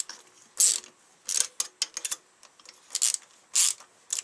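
Hand socket ratchet clicking in short bursts as the cylinder-head nuts on a Dnepr motorcycle engine are run down with light force in a crisscross order. Each back-swing of the handle makes a quick run of pawl clicks, with short pauses between strokes.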